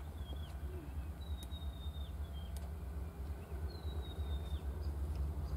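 Birds calling with thin high whistles: a few short notes and two longer held notes that drop at the end, over a steady low rumble.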